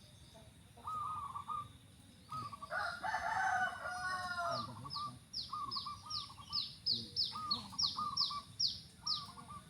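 Zebra doves (perkutut) cooing, with short, high arched coos repeated again and again. A rooster crows once for about two seconds a few seconds in. Through the second half a small bird sings a fast run of descending high chirps.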